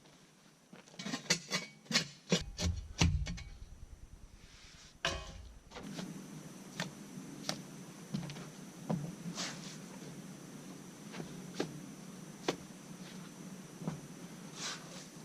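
Scattered knocks and clicks, with a cluster of dull thumps in the first few seconds, then lighter irregular clicks over a faint steady hum.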